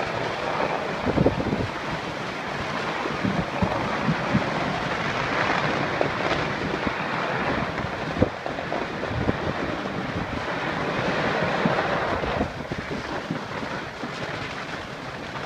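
Fireworks going off in the distance: scattered bangs and pops, the sharpest about a second in and about eight seconds in, over a steady rushing noise.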